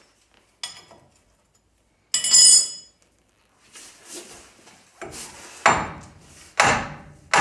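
A hammer striking the Chevy C10's front lower control arm to knock it loose, about one blow a second from about five seconds in, each louder than the last. Earlier, a short metallic clatter of steel wrenches and bolts.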